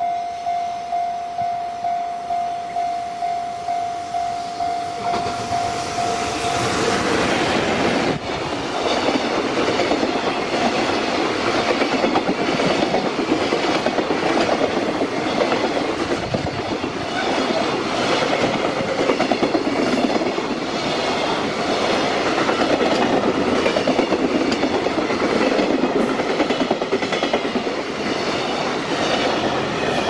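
A level-crossing warning bell rings in a steady beat of about two strokes a second. Then a JR Freight EF210 electric locomotive and its container wagons pass close by and drown out the bell. The wagon wheels clack rhythmically over the rail joints for the rest of the time.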